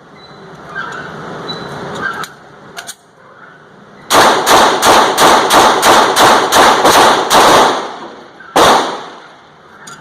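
Sig Sauer P250 9mm pistol fired in rapid succession: about a dozen shots in under four seconds, starting about four seconds in, then one more shot about a second later. The rounds appear to cycle the pistol without a stoppage.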